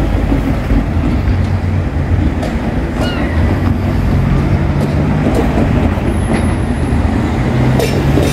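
Running noise of a diesel Great Western Railway passenger train pulling out of the station, heard from aboard: a steady low engine drone under rail noise.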